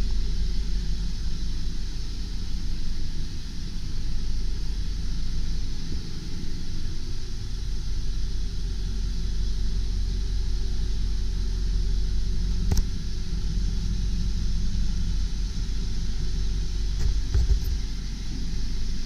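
Ford 7.3L PowerStroke turbo-diesel V8 idling steadily, a low even rumble, with one sharp click about two-thirds of the way through.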